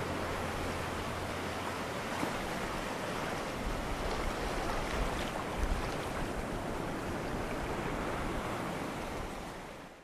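Ocean surf washing onto a beach, a steady wash of waves that fades out near the end.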